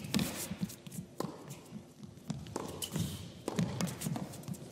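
Tennis rally: the ball struck back and forth with rackets, a sharp pop every second or so, with the players' footsteps on the hard court between shots.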